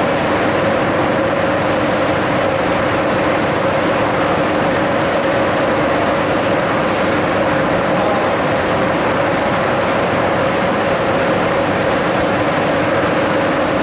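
Steady hum of RENFE high-speed trains standing at the platform with their onboard systems running: an even rushing whir with two steady droning tones underneath.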